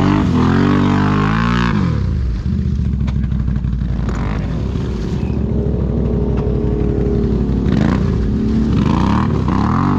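ATV engine revving up and down, settling into a steady run for several seconds, then revving again near the end.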